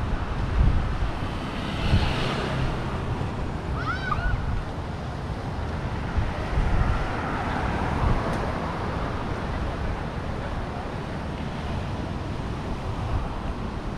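Steady outdoor rushing noise with wind buffeting the microphone, in which passing traffic and surf cannot be told apart. A brief high chirp sounds about four seconds in.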